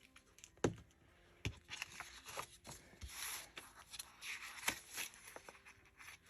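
Close paper handling while glue goes onto a journal page: rustling and rubbing of paper, broken by a few sharp taps and clicks, the loudest about a second in and near the two-thirds mark.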